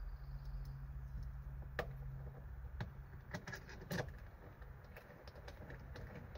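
Sharp metallic clicks and clinks of seat-belt bolts, brackets and tools being handled, several in a cluster a few seconds in, over a steady low hum.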